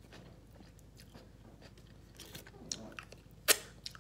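Chewing and biting into a vegan Subway sub: soft wet mouth sounds and small crunches, with one sharp click about three and a half seconds in.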